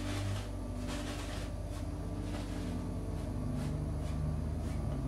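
Large bristle brush swishing back and forth across an oil-painted canvas, about two soft strokes a second, over a low steady hum.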